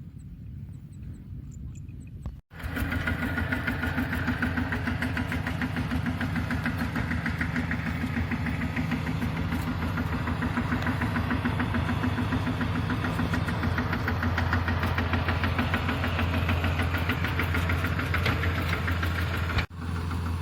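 Kubota DC-70 combine harvester's diesel engine running steadily, heard faintly at first. About two and a half seconds in, it jumps abruptly to loud and close, with a rapid even clatter that holds steady until it cuts off near the end.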